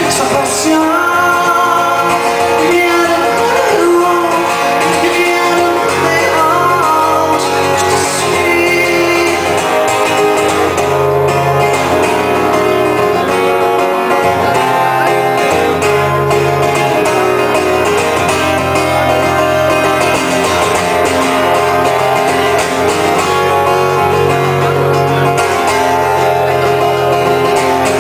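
Live pop-rock song with a strummed acoustic guitar in front and a bass line under it, in a mostly instrumental passage with no lyrics picked out.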